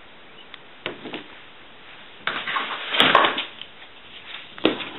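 Handling noise of small parts and tools on a workbench: two light clicks, then a rustling scrape with a sharp click in the middle, and a sharp knock near the end.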